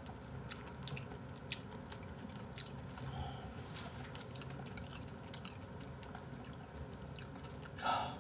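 A person chewing a mouthful of abalone and chicken porridge, with faint scattered wet mouth clicks, and one short louder burst of noise near the end.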